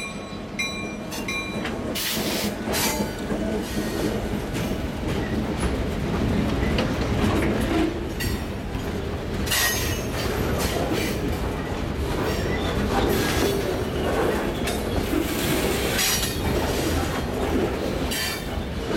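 Freight train boxcars rolling past close by: a steady rumble of steel wheels on the rails with clatter and short bursts of high wheel squeal. A locomotive horn note fades out in the first second.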